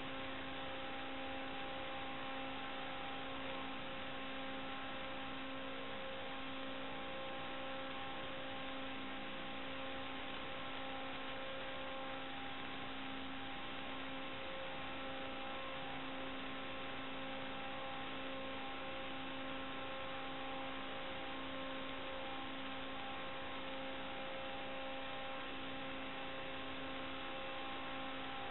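Steady static hiss with a constant electrical hum, unchanging throughout. This is the empty audio channel of an analog FPV video link as recorded by the DVR, and it does not follow the quad's flight.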